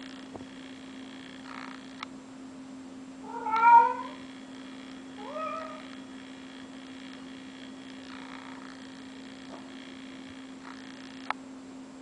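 Cat meowing twice: a loud meow rising in pitch about three and a half seconds in, then a shorter one about a second later.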